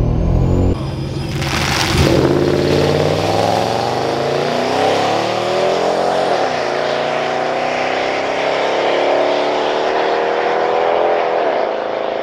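TorqStorm-supercharged 2012 Ram 1500 pickup launching at full throttle down a drag strip: the engine revs climb steadily, with an upshift about six seconds in and another near the end.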